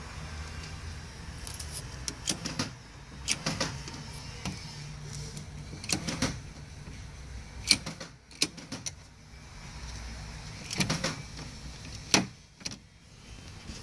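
A 2002 Ford Focus door lock and its linkage rod being worked by hand: irregular metallic clicks and knocks every second or two, over a low steady hum. The lock has a faulty built-in central-locking actuator.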